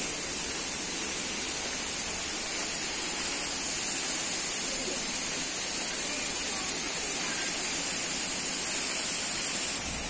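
Steady, unbroken rush of water from a large, heavy-flowing waterfall close by.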